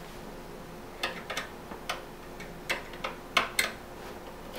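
Phillips screwdriver working at a small screw in a computer's sheet-metal drive cage: a handful of short, sharp clicks at uneven intervals.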